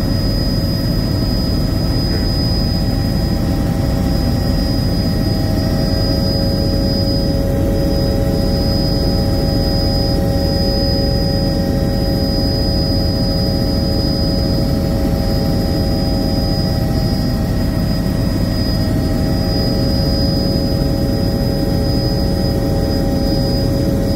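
Helicopter in cruise, heard from inside the cabin: a loud, steady rumble of engine and rotor noise with a constant high turbine whine over it.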